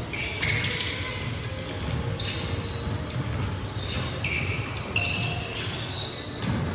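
Basketball game in a gym: a basketball bouncing on the hardwood court and sneakers squeaking several times, with the echo of a large hall.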